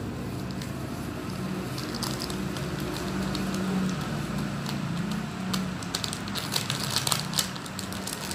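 A Nutrijell pudding-mix packet crinkling and crackling in the hands as it is worked open and emptied into a bowl, the crackles coming thicker and sharper in the second half. A steady low hum runs underneath.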